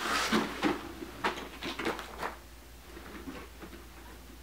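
Stiff plastic costume panels knocking and rustling as they are handled and pulled into place, with a quick run of sharp knocks in the first two seconds or so, then quieter handling.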